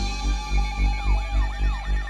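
Electronic music with a steady pulsing bass beat, about three to four pulses a second, under held synth tones. Wavering tones that rise and fall join in about a second in.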